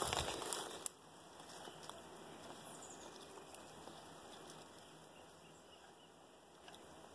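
Dry branches and leaf litter crackling and rustling underfoot for about the first second, then a quiet outdoor background with a few faint scattered clicks.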